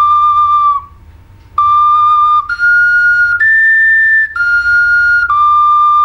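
Clay bird whistle (svistulka) with two finger holes playing clear held notes, each about a second long: a low note, a short pause, then three notes stepping up and back down again. The pitch sags briefly where each phrase ends.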